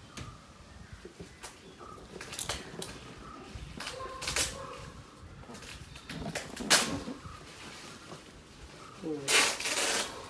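A cardboard product box being handled: scattered knocks and rustles, with a longer, louder scrape and rustle near the end as the box is turned around.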